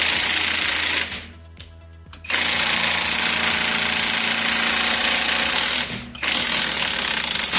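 An impact tool hammering in three bursts, a short one, then a long one of about three and a half seconds, then another, working on bolts during a Jeep rear axle shaft teardown.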